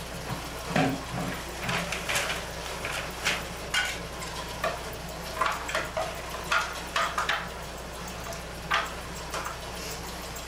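Paper and gift wrap rustling and crinkling in short, irregular bursts as presents are handled, over a steady low hum.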